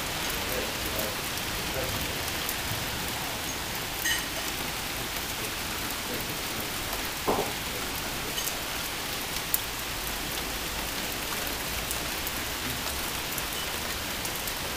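Steady heavy rain from a severe thunderstorm pouring down, with scattered drop ticks and one brief louder thump about halfway through.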